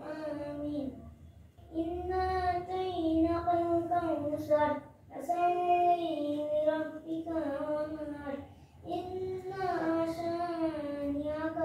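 A child's voice chanting in long, drawn-out melodic phrases that glide up and down, with a short breath between phrases about every three seconds.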